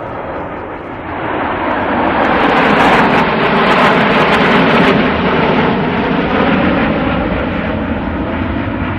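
Jet engines of a formation of six military jets flying low overhead: a loud roar that swells from about a second in, peaks midway with some crackle, then slowly fades as they pass.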